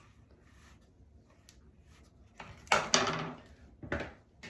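Bathroom sink cabinet door knocking and rattling as the crimping iron's cord snags on its doorknob: a sudden loud clatter about two-thirds of the way in, then a second knock about a second later.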